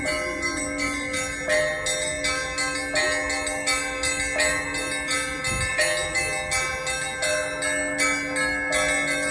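Church bells ringing in the Russian style (kolokolny zvon): rapid strikes of small bells over the long, sustained ringing of larger bells, with a heavier bell struck every couple of seconds.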